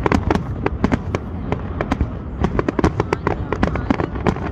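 Fireworks display: a rapid barrage of bangs and crackling pops, several a second, over a steady low rumble.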